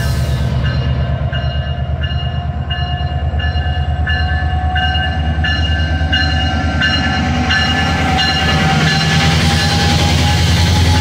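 Metrolink MP36PH-3C diesel locomotive (EMD 16-cylinder 645 engine) running past at the head of a passenger train, its engine giving a steady low drone with a slowly rising whine. Its bell rings about every 0.7 seconds and stops about eight seconds in. The engine rumble grows louder near the end as the locomotive draws alongside.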